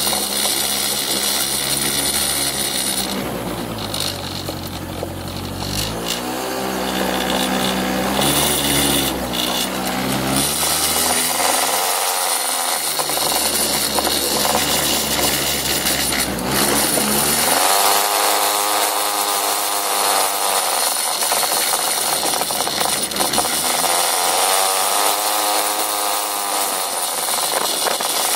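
Small motor scooter engine running under way, its pitch climbing and falling again several times as the rider speeds up and slows down, over a steady rushing hiss of wind on the microphone.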